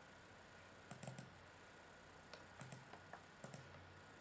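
Faint computer mouse clicks, a quick cluster about a second in and several more singles and pairs later, over a quiet room background.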